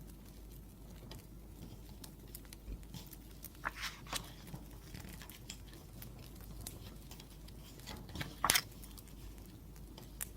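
Wood fire crackling, with irregular small pops and a few louder snaps about four seconds in and again near the end.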